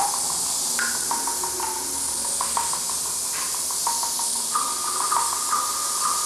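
Ambient electronic sound: a steady high hiss under quick, plinking high notes, which step up a little in pitch just past halfway.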